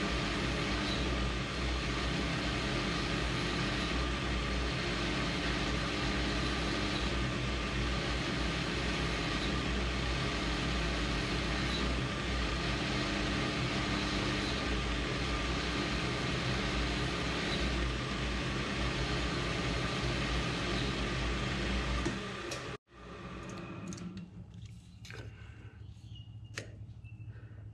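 Metal lathe running under cut, a carbide-insert tool turning a steel spindle shaft and throwing off blued chips: a steady motor and gear hum with a cutting hiss. About 22 seconds in it cuts off suddenly, and faint clicks follow as a digital caliper is handled against the part.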